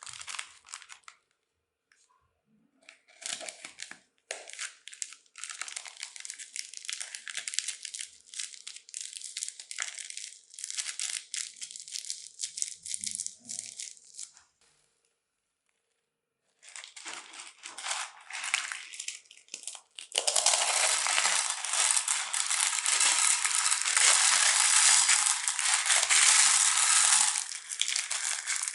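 Crunchy bead-filled slime being squeezed and pressed, giving a dense crackling crunch. It comes in bursts through the first half, stops briefly past the middle, then turns continuous and louder for the last third.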